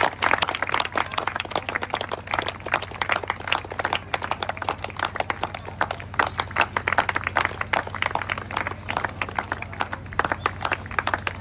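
Crowd applauding: many hands clapping densely and continuously, over a low steady hum.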